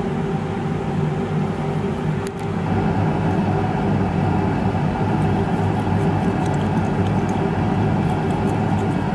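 A steady, unchanging machine-like hum with several held pitches in it. From about five seconds in it carries faint light ticks and scratches, which fit a bristle brush scrubbing a small brass clock wheel in a glass dish of rinse.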